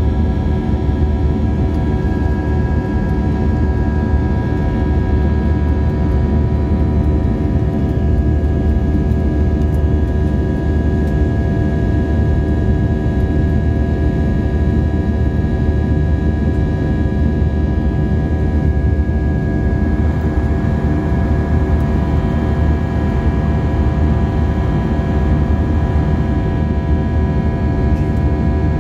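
Airbus A320 jet engines at climb power, heard inside the cabin near the wing: a steady heavy rumble with several steady whining tones over it. About two-thirds of the way through the mix of tones shifts and the hiss gets a little brighter.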